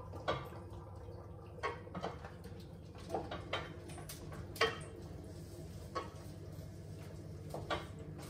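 Cookware clattering: scattered clinks and knocks of utensils and pans against pots on the stove, the loudest about halfway through, over a steady low hum.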